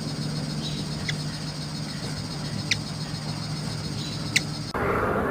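Hummingbird wings humming steadily, with three short, high chip calls about a second and a half apart. Near the end the sound cuts abruptly to a different, noisier background.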